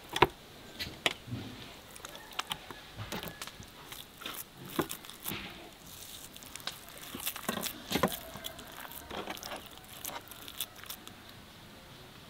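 Hands working a stuffed fish on a wooden board: irregular soft clicks, taps and moist crinkling as the walnut-and-onion filling is pressed into the fish, with a sharper click just after the start.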